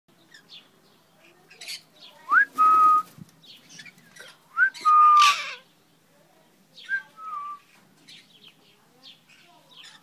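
Yellow Indian ringneck parakeet whistling: three whistles, each a quick upward slide into a held mid-pitched note, about two seconds in, about four and a half seconds in, and a shorter, wavering one about seven seconds in. Faint short chirps and rustles fall between them.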